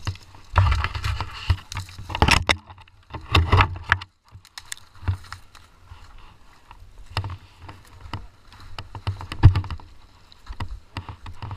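Irregular knocks, clicks and scuffs of someone moving about in deep snow among saplings, heard close up through a helmet-mounted camera, with a few louder bursts of rushing noise in the first few seconds and again near the end.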